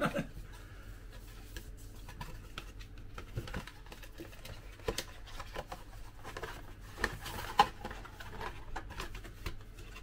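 Light, scattered taps, scrapes and clicks of a cardboard post box craft kit being handled and folded together, with one sharper click about three-quarters of the way through.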